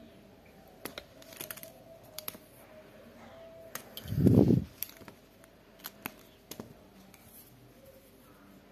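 Plastic pens clicking and tapping against each other as they are handled and laid down, a few light clicks scattered through, with one louder dull thump about four seconds in.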